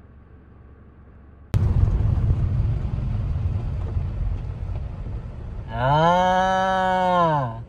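A free-range cow moos once near the end, one long call that rises and then falls in pitch. Before it, a loud low rumble starts suddenly about a second and a half in.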